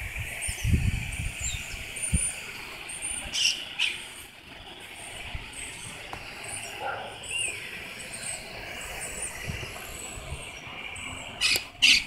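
Monk parakeets chirping repeatedly from their stick nest on a utility pole, short high calls coming every second or so, over a steady hum of street traffic. Two loud sharp sounds stand out near the end.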